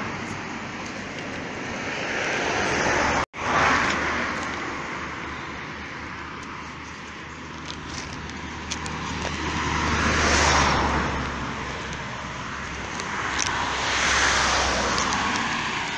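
Road traffic: cars passing one after another, the tyre and engine noise swelling and fading away about four times. The sound cuts out for an instant a little over three seconds in.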